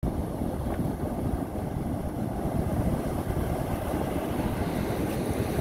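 Wind rumbling on a phone's microphone, mixed with the steady wash of ocean surf breaking on the beach.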